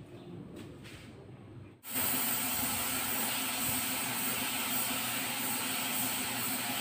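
Paint spray gun starting to spray topcoat onto a car bumper: compressed air and paint come on suddenly about two seconds in as a steady, loud hiss.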